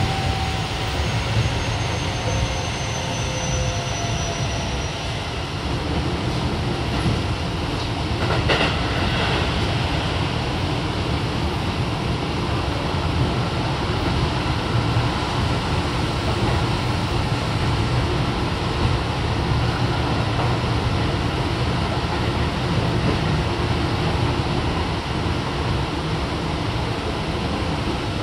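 Keio 7000 series electric train running at speed, heard inside the passenger car: a steady rumble of wheels on rail. The Hitachi IGBT inverter and motors give faint tones that fall in pitch over the first few seconds. There is a short sharp noise about eight seconds in.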